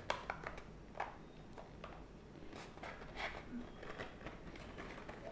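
Folded paper rustling and crinkling softly as the pleated ends of a paper balloon are gathered and a rubber band is wound around them. Scattered light clicks and short rustles rather than a steady sound.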